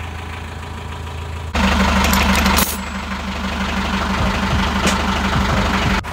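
Narrowboat's inboard diesel engine running steadily, with a louder, noisier stretch from about one and a half to nearly three seconds in.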